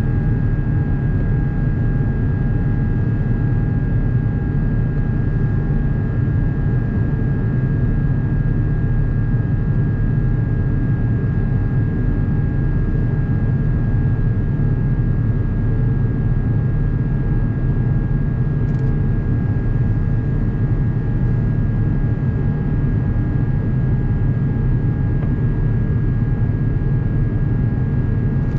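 Steady cabin noise of an Airbus A350-900 in flight, heard inside the cabin by a window: a low, even rumble of its Rolls-Royce Trent XWB engines and airflow, with a faint steady hum on top.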